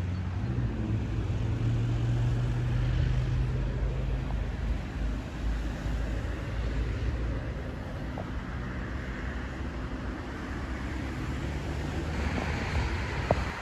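A motor vehicle engine running with a steady low hum. It is strongest in the first few seconds, then lower. A single sharp click near the end.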